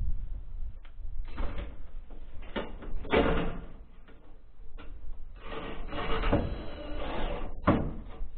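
Sheet-metal flashing being fitted to a window opening, heard as several separate bursts of rattling and tool noise, with wind rumbling on the microphone throughout.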